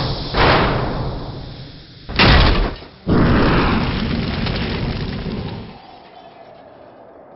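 Cinematic logo-reveal sound effects: three heavy hits, one at the start, one about two seconds in and one a second later, each with a long fading tail. The last tail dies away about six seconds in, leaving a faint low tone.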